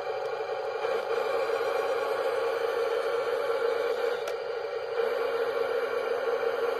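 Heng Long Snow Leopard (M26 Pershing) RC tank driving over slate chippings: its sound unit's steady engine noise, with the whine of the drive gearbox motors coming in about a second in, dropping near four seconds and starting again at five.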